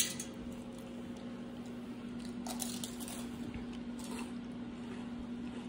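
A sharp click as a hand reaches into a metal tin of chips, then faint crunching as a child bites and chews a chip, a couple of times around the middle. A steady low hum runs underneath.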